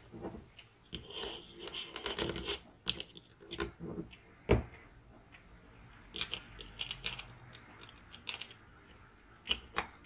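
Bosch GSB 18V-EC drill gearbox parts being handled and fitted together: irregular small clicks, rustles and light knocks of metal and plastic pieces as a planetary gear carrier is set into the gear housing, with one sharper knock about four and a half seconds in.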